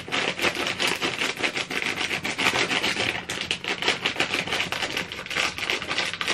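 Rapid, continuous clicking and scraping of a utensil beating cake batter in a mixing bowl.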